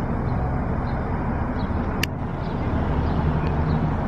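Steady low rumble of vehicle engines, with one short sharp click about two seconds in.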